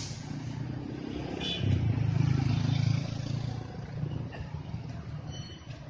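A large tour bus engine passing close by, a low rumble that swells to its loudest about two seconds in and then fades. A brief thin high tone sounds near the end.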